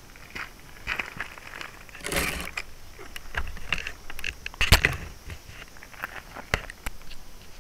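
Handling noise on a tiny keychain camera's built-in microphone as it is picked up off gravel: scattered clicks and knocks, a rustling scrape about two seconds in, and the loudest knock a little before the five-second mark.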